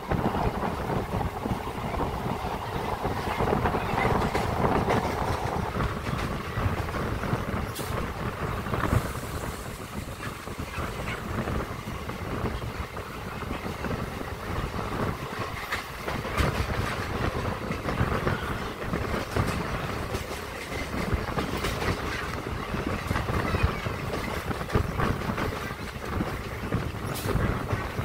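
A MEMU electric multiple-unit train running, heard from an open door: a steady rumble of wheels on rail, with a few sharp clacks as the wheels cross rail joints and points.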